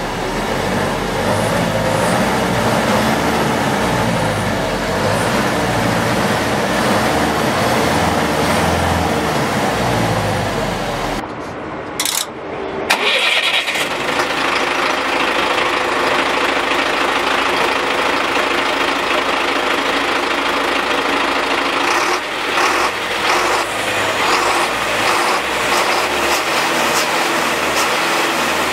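GAZ-3309 truck's diesel engine idling at about 800 rpm. It is heard first from inside the cab, then, after a brief break about eleven seconds in, close to the exhaust pipe, running steadily.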